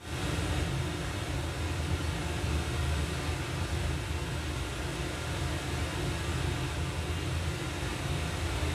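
Zebronics Juke Bar 9700 Dolby Atmos soundbar playing back a test clip: a steady, dense noise with heavy bass that starts abruptly and holds level.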